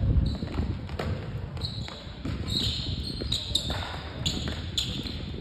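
A basketball bouncing repeatedly on a hardwood gym floor during play, with short high squeaks of sneakers on the court, mostly in the second half.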